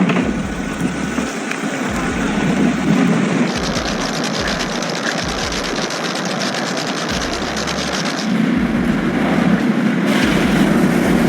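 Snowy city street traffic noise: vehicles running past, a steady wash of engine and tyre sound that changes character abruptly a few times.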